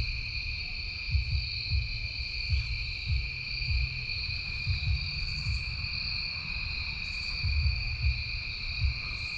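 Steady insect chorus, a continuous high shrill trill at two pitches, with irregular low rumbles and thumps close to the microphone.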